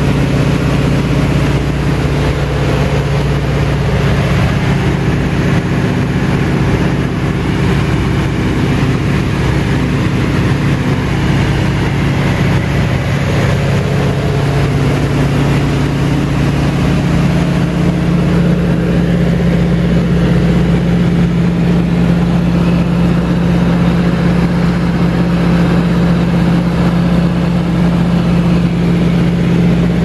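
Floatplane engine and propeller droning steadily in flight, heard from inside the cockpit. Its note shifts slightly a little over halfway through.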